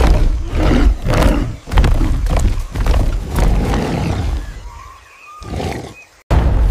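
Ape-like roars and growls over a deep rumble, fading away after about four and a half seconds; a brief silence, then a loud sound cuts back in at the very end.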